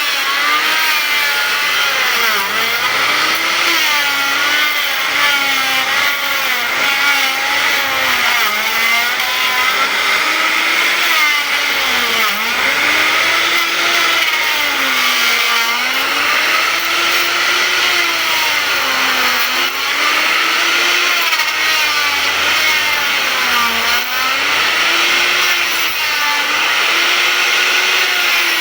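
Electric hand planer shaving teak wood. The motor runs steadily, and its pitch sags and recovers every few seconds as the blades bite into the board on each pass.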